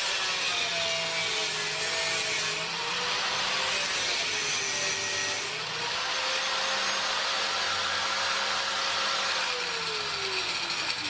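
Angle grinder running under load, its motor note wavering and then falling near the end as it slows.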